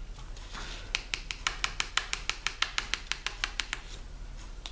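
A diamond painting drill pen tapping against small square resin drills: a quick run of about twenty light plastic clicks, roughly seven a second, starting about a second in and stopping before the end.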